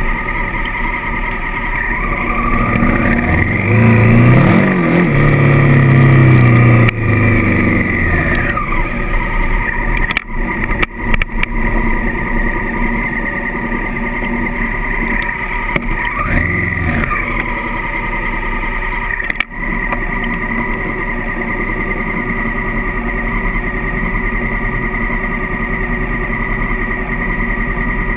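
Honda CRF1000L Africa Twin's parallel-twin engine under way on a dirt track. It revs up and back down a few seconds in and again briefly past the middle, then runs steadily at lower revs near the end.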